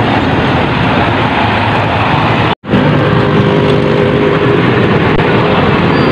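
Steady, loud road traffic noise from a busy highway, with cars and motorbikes passing close by. It cuts out for an instant about two and a half seconds in, then carries on the same.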